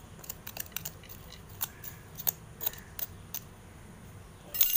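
Fingers scraping and poking into dry, crumbly potting soil in a terracotta pot, making irregular short scratchy clicks, with a louder rustle of scratching near the end.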